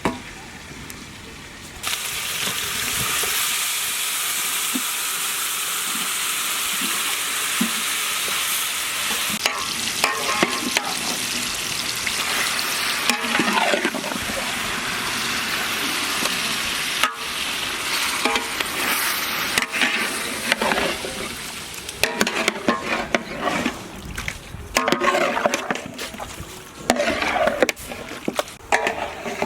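Marinated chicken pieces sizzling in hot oil and butter, the loud hiss starting suddenly about two seconds in as they go into the pan. In the second half the frying is broken by an irregular clatter of stirring in the pan.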